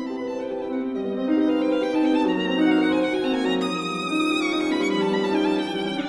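Background music of bowed strings, led by a violin playing slow, held notes.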